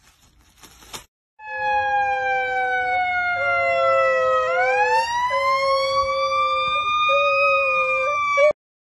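Siren wailing: one long unbroken tone that slides slowly down, then about halfway through sweeps up and holds, over a steadier lower tone. It starts suddenly after a quiet first second and cuts off just before the end.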